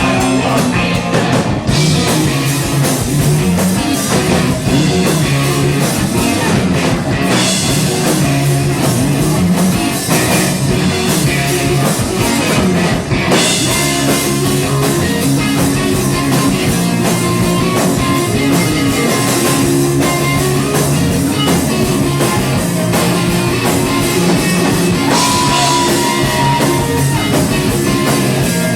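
Live rock band playing a song at full volume: electric guitar and drum kit, dense and steady throughout.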